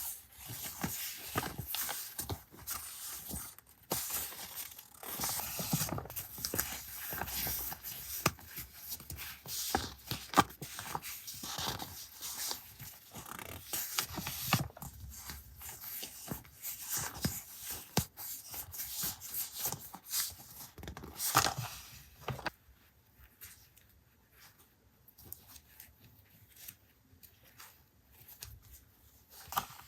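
Paper and plastic packaging crinkling and rustling as stationery items are handled and unwrapped, with many small sharp crackles. About 22 seconds in it drops to quiet, with only occasional light rustles.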